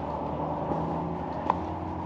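A vehicle running: a steady hum of engine and road noise, with a sharp click about one and a half seconds in.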